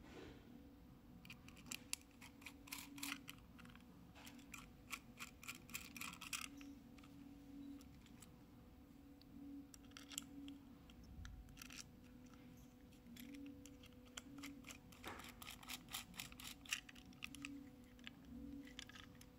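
A small screwdriver working screws in a plastic Yamaha Ténéré 700 fuel cap, with small metal screws clicking against each other, in several spells of rapid light clicks.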